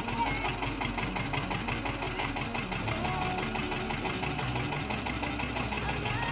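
Diesel tractor engine running steadily with a fast, even chugging.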